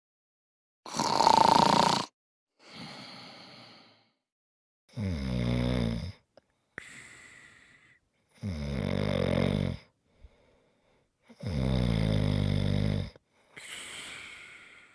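Loud snoring: a sharp snort about a second in, then three loud rattling snores roughly three seconds apart, each followed by a softer breath out.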